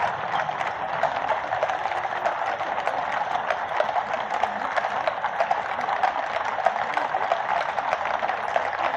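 Many horses' hooves clip-clopping on the road as a column of mounted troops rides past at a walk, a dense, continuous patter of overlapping hoof strikes.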